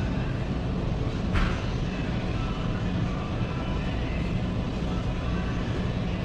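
Loud, steady rumbling noise, heaviest in the low end, with a short hiss about a second and a half in.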